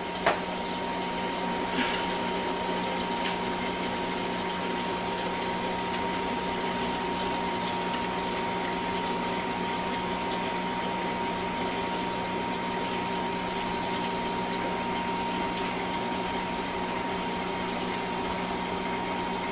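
Kitchen faucet running steadily, filling a measuring cup with cool water, with a steady hum under the rush of the water.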